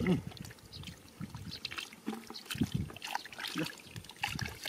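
Hands sloshing and squelching through shallow muddy water, with irregular small splashes and trickles.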